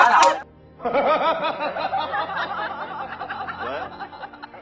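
A man laughing in a long run of rhythmic chuckles from an inserted movie clip used as a reaction gag, slowly fading toward the end. Before it, the noise of the game cuts off sharply about half a second in.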